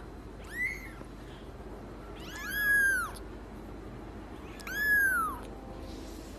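Kitten mewing three times, high-pitched calls that each rise and fall. The first is short, and the next two are longer and come about two seconds apart.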